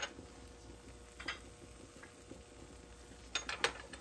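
A few light clicks and taps of kitchen utensils against dishes, with a quick run of clicks near the end.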